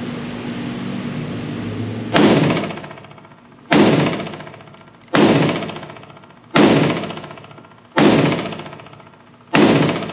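Springfield Hellion 5.56 rifle firing six single shots, evenly spaced about a second and a half apart. Each crack is followed by a ringing echo that fades before the next. A steady hum runs before the first shot, about two seconds in.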